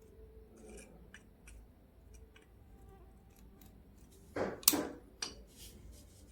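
Faint clicks and ticks of small soldering-iron parts being handled and tightened during reassembly after a heating-coil replacement, with a louder scrape and sharp clack about four and a half seconds in.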